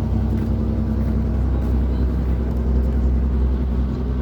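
Motor ship's engine droning steadily, a continuous low hum with a few steady tones.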